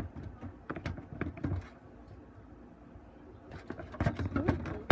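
Slime being squished and pulled by hand in a plastic container: a run of small sticky clicks and squelches, sparser in the middle and busier again near the end.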